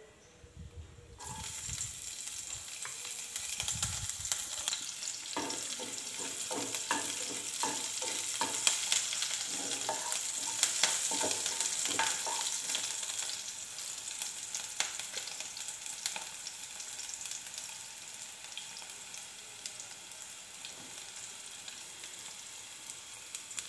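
Chopped green chillies sizzling in hot oil with mustard seeds and cumin in a nonstick pan, the tempering step of an Indian dish. The sizzle starts about a second in, and a wooden spatula stirs and scrapes across the pan bottom, most busily through the middle stretch.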